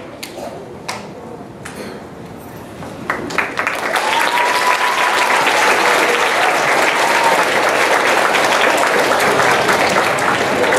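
Large audience of schoolchildren and adults applauding in a big hall: a few scattered claps at first, then loud, steady applause swelling up about three seconds in.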